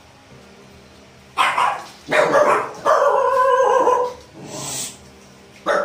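A dog barking several times starting about a second and a half in, one bark drawn out longer, and once more briefly near the end.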